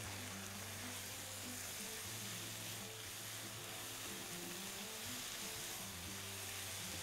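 Food sizzling steadily and softly in a frying pan on the stove: tomatoes and peppers cooking in the chicken's sauce.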